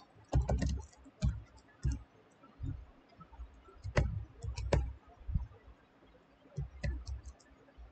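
Computer keyboard keystrokes: a dozen or so irregular, sparse clicks as a line of code is typed, some struck harder than others.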